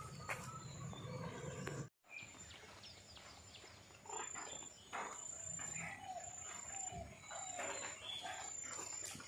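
Outdoor birdsong and insects: a steady high insect whine runs under scattered bird chirps and short gliding calls. The sound drops out for a moment about two seconds in.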